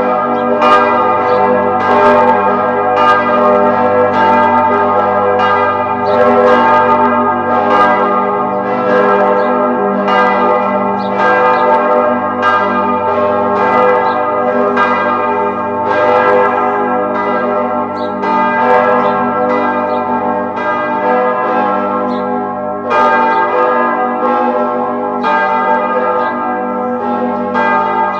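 Several church bells ringing in a continuous peal, struck about once or twice a second, with each stroke's tone hanging on and overlapping the next.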